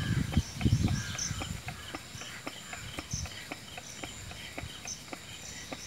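Fuel injection pump of a single-cylinder Kirloskar diesel being primed: a few low handling knocks in the first second, then faint regular clicking, about three a second, as the pump starts drawing diesel through its new fuel line without the air being bled. Faint high chirping sits behind it.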